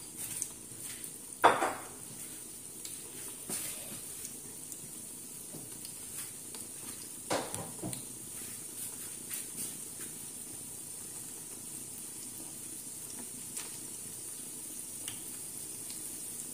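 Corned beef patties shallow-frying in hot oil in a nonstick pan over medium heat: steady sizzling with small scattered crackles, and two louder sudden sounds, about a second and a half in and again about seven seconds in.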